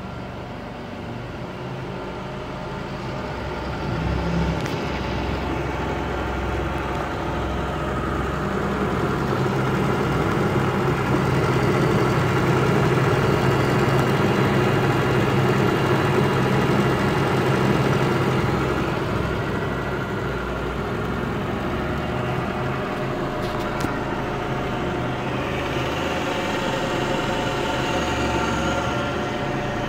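Clausing Model 2274 20-inch variable-speed drill press running: its 1½ hp three-phase motor and variable-speed drive give a steady mechanical hum with several held tones, louder in the middle.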